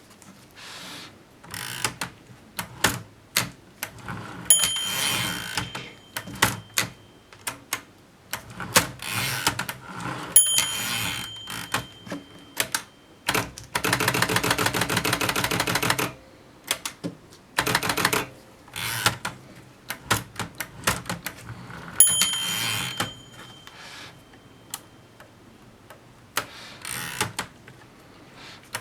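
1939 Erika M portable typewriter being typed on: irregular, sharp key and typebar strikes. The margin bell rings three times, each ring followed by a short rushing sound. Around the middle comes a long run of rapid, even ratcheting clicks.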